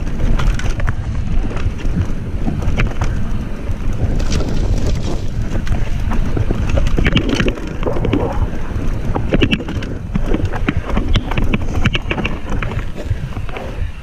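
Mountain bike riding down a dirt singletrack: heavy wind buffeting on the microphone over a steady tyre rumble, with frequent sharp rattles and knocks as the bike goes over bumps.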